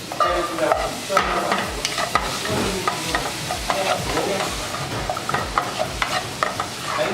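Onion and garlic frying in a nearly dry pan of oil, sizzling steadily while being stirred, with frequent scrapes and knocks of the utensil against the pan.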